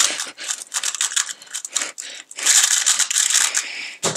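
A 2x2 speedcube turned at full speed during a timed solve: a fast, continuous clatter of plastic layer turns. About four seconds in it ends with one sharp thump as the cube is set down and the hands come down on the StackMat Gen 4 timer pads to stop the timer.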